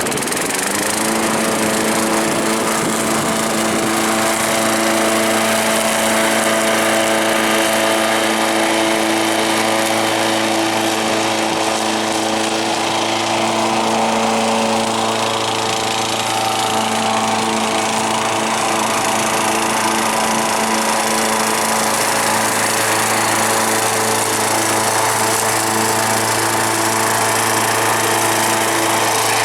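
1987 Honda self-propelled walk-behind lawn mower running while mowing, its engine climbing in pitch in the first second and then holding a steady speed.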